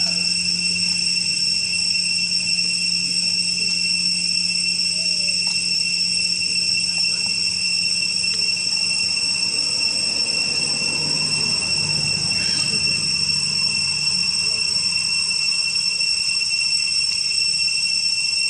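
Insects in the surrounding forest droning in a steady, unbroken high-pitched whine.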